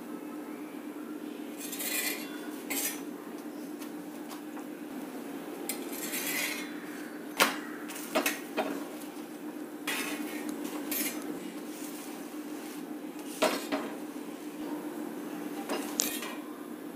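Flat steel spatula scraping and clinking against a tawa (griddle) as a ragi roti is pressed and turned on it: short scrapes and several sharp clinks at irregular intervals, over a steady low hum.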